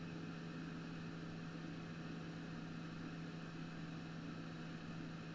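Sugon 8650 hot air station's blower running steadily, air hissing out of the handpiece with a steady low hum underneath.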